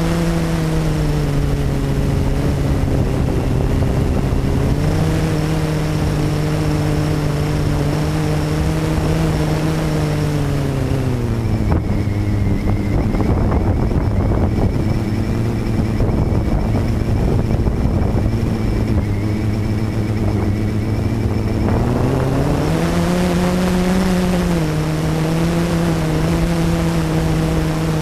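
The four brushless motors and propellers of a Blade 350QX quadcopter, heard from a camera mounted on the quad, give a steady buzzing hum. The pitch drops about a third of the way through, holds low, then climbs back up near two-thirds of the way and rises again at the very end.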